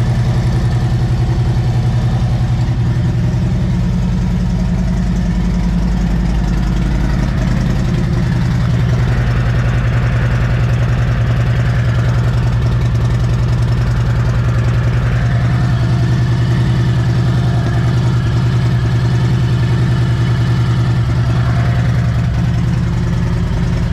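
2020 Harley-Davidson Road Glide's Milwaukee-Eight V-twin idling steadily on a test run after an oil filter relocation kit and oil cooler have been fitted; its note shifts a little about eight seconds in.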